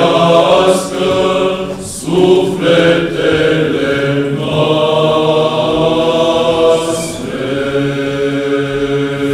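Choir of young men singing an Orthodox troparion unaccompanied, in chant style, with a steady low drone note held beneath the melody.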